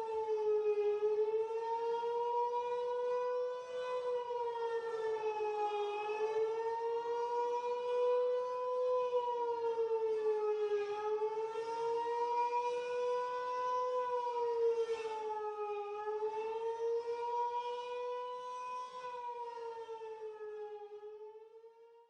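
Air-raid siren wailing at its held pitch, the tone sagging and climbing back slowly about every five seconds, then fading out near the end.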